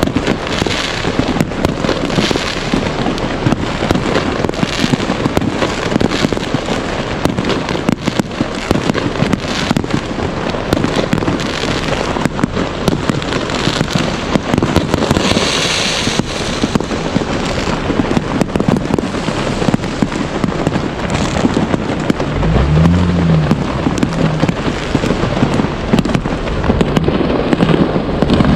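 Many fireworks going off at once: a dense, continuous barrage of bangs and crackling with no break, and a brief low-pitched sound that bends up and down about 23 seconds in.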